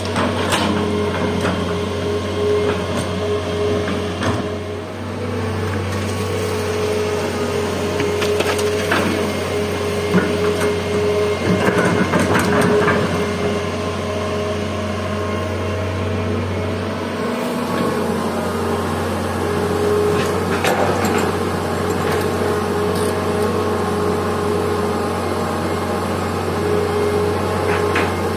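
Old Hitachi EX200 hydraulic excavator's diesel engine running steadily under load while the bucket dumps soil into a steel dump-truck bed, with crunching and knocks of earth and stones falling into the bed.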